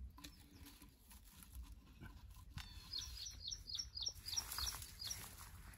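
A bird calling: a quick run of short, high chirps, about four a second, starting about three seconds in, with a few more after.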